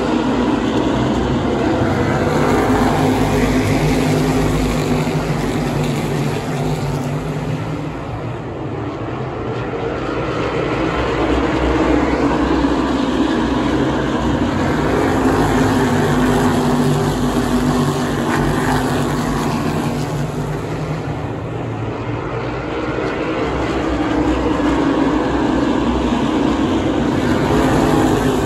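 A pack of asphalt modified race cars' V8 engines running at racing speed around the oval, the sound swelling as the field comes by and easing off twice as it moves away, about a third of the way in and again about three-quarters of the way through.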